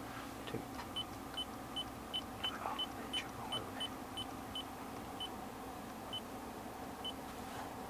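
Short high electronic beeps from the Lexus LS460's climate-control buttons, about fifteen at uneven spacing as the settings are pressed, over the steady hum of the car running with the air-conditioning on.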